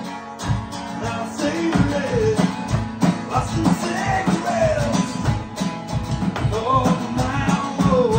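A strummed acoustic guitar with a man singing, backed by a Roland electronic drum kit keeping a steady beat; the singing comes in strongest in the second half.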